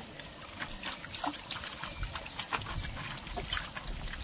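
Irregular light splashing and clicks from small fish and prawns flapping in a net in shallow water as hands sort through them.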